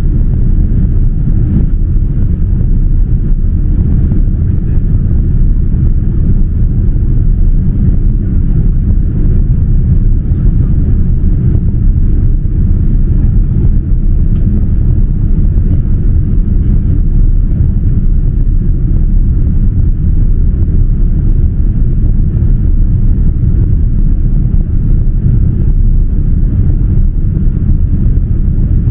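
Steady cabin noise of a Boeing 787-9 airliner in flight on descent: a low rumble of its Rolls-Royce Trent 1000 engines and the rush of airflow, heard from inside the cabin.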